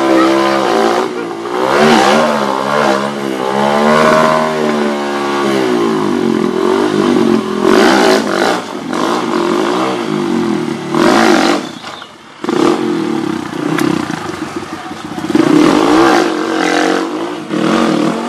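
Off-road dirt bike engine revving hard, its pitch climbing and dropping back over and over, with a brief lull about twelve seconds in.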